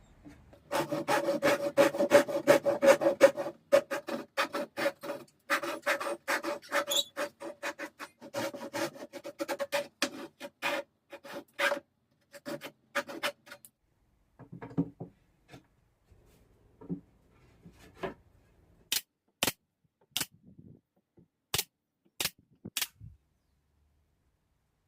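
Rapid back-and-forth rubbing strokes of hand work on pine wood, with a steady ringing tone in the board, for the first half. The strokes stop and a few sharp clicks follow near the end.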